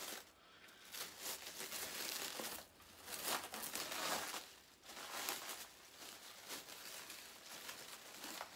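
A thin black plastic bag crinkling and rustling as it is pulled open and drawn back by hand, in irregular bursts, loudest in the first half.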